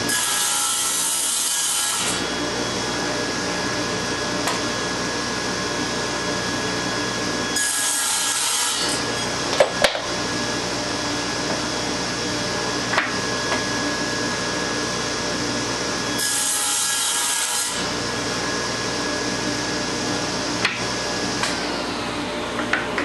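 Table saw with a thin-kerf 7 1/4-inch blade running steadily and crosscutting pallet-wood boards to length: three cuts, each a hiss lasting a second or two, about eight seconds apart, with a few light clicks between them.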